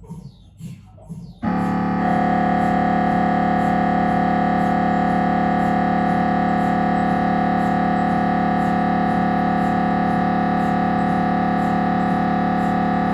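Siemens Magnetom Avanto 1.5 T MRI scanner's gradient coils during a head scan: after a brief quieter lull with a few falling sweeps, a new scan sequence starts about a second and a half in as a loud steady hum of several fixed tones.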